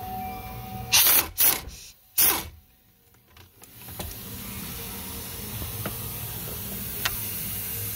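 Air ratchet loosening the 13 mm steering-column bolts: three short, loud bursts of the tool running about a second in, a pause, then a longer steady hissing run.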